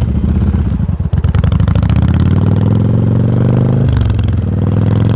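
A 1986 Yamaha Virago's V-twin exhaust while the bike is under way. Its pitch climbs steadily as it accelerates, with a short break in the note about a second in and again near four seconds.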